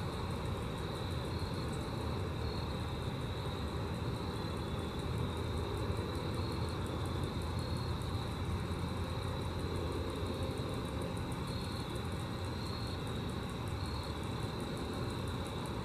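Grasshoppers stridulating in a fast, even run of high pulses, over a steady low rumble.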